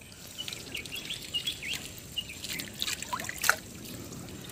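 Small wet crackles, ticks and patters of hands sorting small fish and shrimp out of a wet fishing net, with one louder click about three and a half seconds in. A few faint, short high chirps sound over it.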